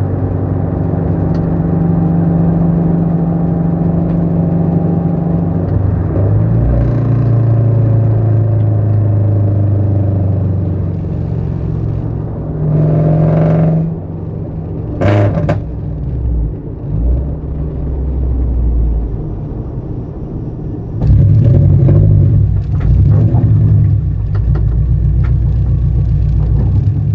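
Toyota GR86's flat-four boxer engine running through an unequal-length header, a 3-inch overpipe and front pipe with no resonator or catalytic converters, and an HKS single cat-back exhaust: a loud, rumbling note as the car is driven under changing throttle. There are brief rises in revs near the middle and a louder stretch of throttle about three-quarters through.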